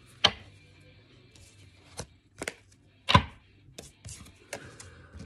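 A series of sharp taps and knocks at uneven intervals, about eight in all, the loudest a little after three seconds in.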